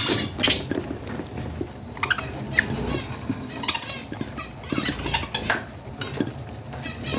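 Baby budgies (budgerigar chicks) giving short, irregular begging chirps, about one burst a second, as they beg to be fed.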